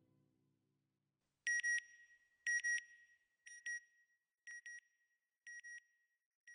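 Closing logo sound effect: pairs of short, high electronic beeps, one pair about every second, each pair fainter than the last, after the end of a music track fades out.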